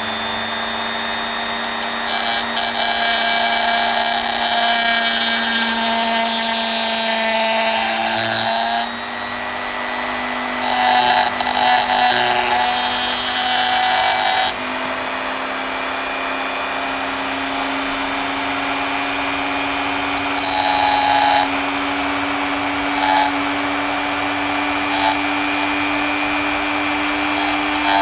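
Small high-speed rotary tool running steadily, its pitch creeping up slightly, with several stretches of harsh grinding as the bit shaves the metal inside fender of a die-cast toy car.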